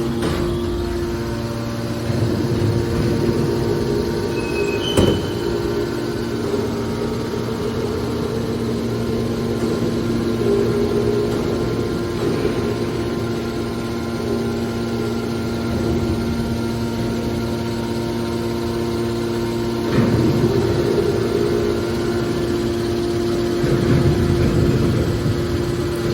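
Scrap metal baler running: a steady machine hum throughout, with noisy swells and a few sharp knocks, one about five seconds in and another near twenty seconds.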